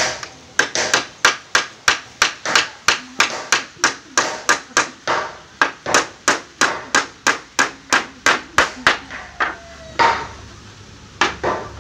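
Claw hammer driving nails into wooden bed slats: steady, evenly spaced blows about three a second that stop about nine seconds in, with one more blow a second later.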